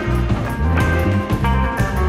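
Background music: held instrument notes over a moving bass line, with drum hits.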